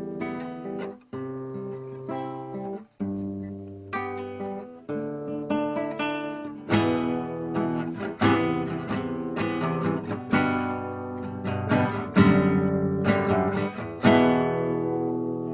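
Acoustic guitar strumming chords in an instrumental passage of a song. The strums grow louder and come faster from about seven seconds in, and a final chord rings out near the end.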